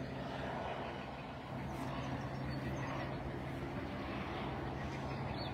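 Helicopter nearby, a steady low hum of its engine and rotor.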